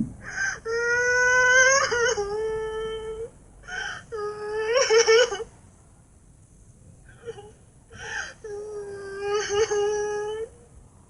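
Cartoon character's crying sound effect: a high-pitched voice wailing in several long, drawn-out, wavering cries, with a pause of about two seconds midway before it starts up again.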